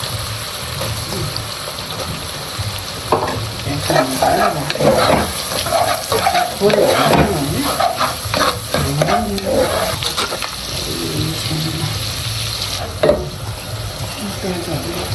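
Chopped onion and spices sizzling in melted butter in a pan while being stirred, with a spatula scraping and a couple of sharp knocks against the pan, about three seconds in and near the end.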